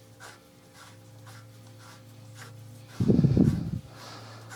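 Faint clicks of small metal lathe parts being handled over a steady low hum, with a loud low rush lasting under a second about three seconds in.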